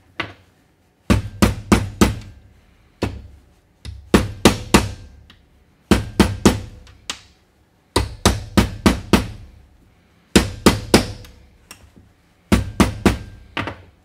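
A small sledge hammer striking a copper ring terminal crimped onto a 1/0 welding cable, flattening the terminal's flared barrel. The blows come in quick runs of three to six, with short pauses between the runs.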